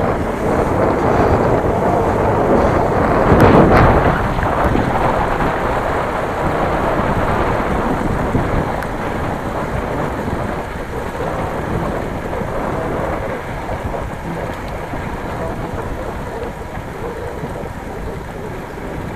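Wind rushing over the microphone of a camera on a moving bicycle, strongest about three and a half seconds in and slowly easing off.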